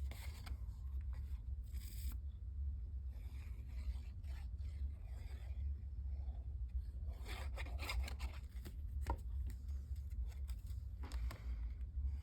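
Cut cardstock pieces being handled and pressed into place: intermittent paper rustling and scraping in short strokes, over a steady low hum.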